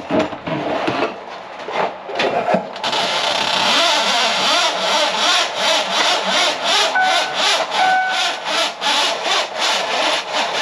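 Motorized drain-cleaning machine running, its cable scraping and slapping in the drain line in a steady rhythm of about two and a half strokes a second, with two short squeals near the middle.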